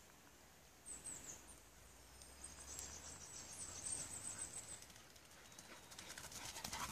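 Faint, high-pitched song of a small bird, a few quick falling notes about a second in, then a thin run of notes for a second or two. Near the end, a dog's paws rustle and patter ever closer through dry fallen leaves.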